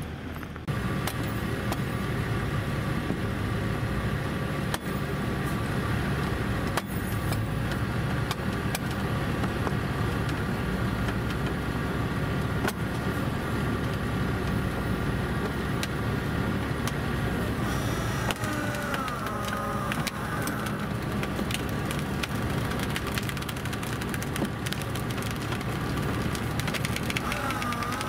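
Heavy diesel engines of the recovery truck and an excavator running steadily during the lift, a continuous machinery drone.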